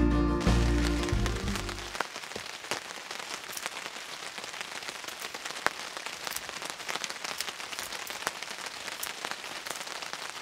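Acoustic guitar music fading out over the first two seconds, then steady rain: a soft hiss scattered with irregular sharp drop hits.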